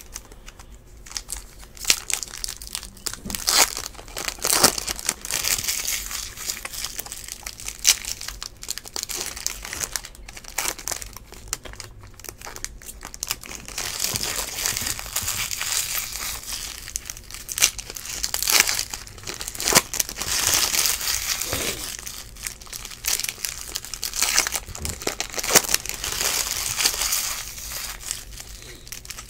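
Foil wrappers of Topps Stadium Club baseball card packs being torn open and crinkled in the hands, in uneven stretches of crackling rustle with short pauses between.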